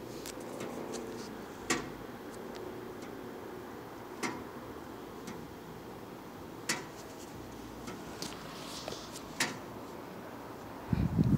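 Four sharp clicks about two and a half seconds apart, with fainter ticks between them, over a steady low hiss. Loud low rumbling starts close to the end.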